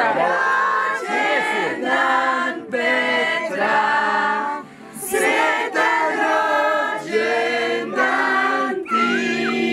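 A choir singing a hymn in held, many-voiced notes, phrase after phrase, with a short breath-like dip a little before the middle.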